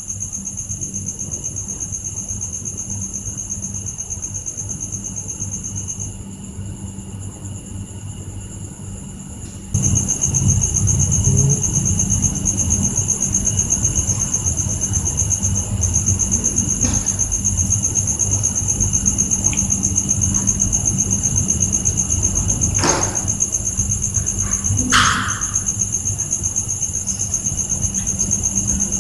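Night insects trilling in a steady high continuous chorus over a low hum. The trill drops away for a few seconds and comes back louder about ten seconds in. Near the end there are a couple of brief sharper sounds.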